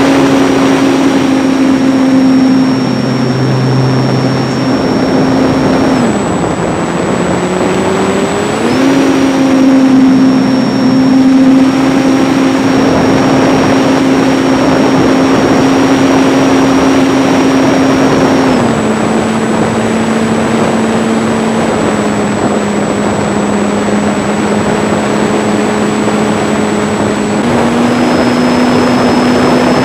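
ParkZone T-28 RC warbird's electric motor and propeller whining steadily in flight, heard from a camera on the wing with heavy wind rush. The pitch drops about six seconds in, climbs back near nine seconds, then steps lower again in the second half.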